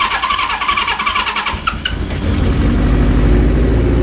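Suzuki GS1000 inline-four motorcycle engine on its electric starter: the starter whirs as it cranks, the engine catches about two seconds in, and it then runs steadily through its Kerker exhaust.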